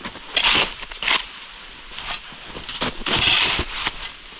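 Small folding shovel's metal blade scraping and digging into hard-packed snow in several separate strokes, clearing snow from under a stuck car whose tyres were spinning.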